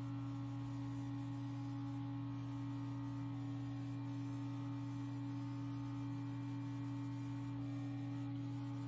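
Steady low machine hum with a faint hiss from a small spray gun spraying red paint onto a model car body.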